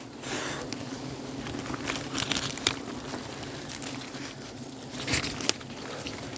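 Irregular rustling and crackling, with sharp snaps clustered about two seconds in and again near five seconds.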